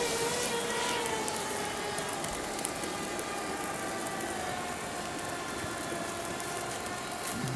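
An engine's steady drone passing by, its pitch falling slowly over several seconds.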